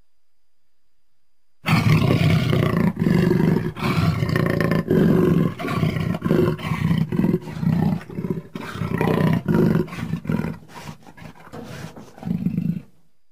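Jaguar roaring: a long series of deep calls broken by short gaps, starting about a second and a half in and stopping shortly before the end.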